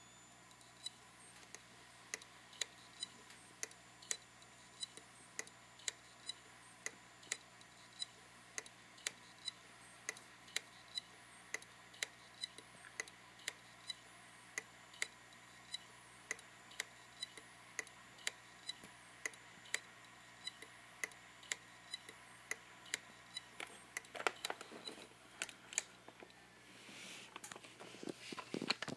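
Hitachi Deskstar 5K3000 3.5-inch hard drive clicking over and over at an even pace, about one and a half clicks a second, each a sharp tick with a brief metallic ring. The drive was knocked while writing and the computer no longer recognizes it; the uploader wonders whether this is the 'click of death'. Irregular scuffing and rattling noise comes in near the end.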